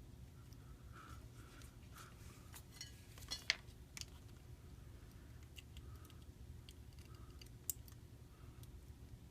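Small clicks and taps from handling tiny phone parts and tools while fitting a flex cable connector, with a few sharper clicks in the middle and one near the end, over a low steady hum.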